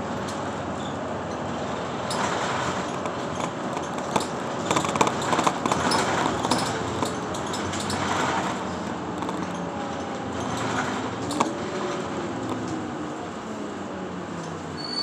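Bus in motion heard from inside the cabin: steady running noise with a stretch of rattling in the first half, and the engine note shifting in pitch in the second half.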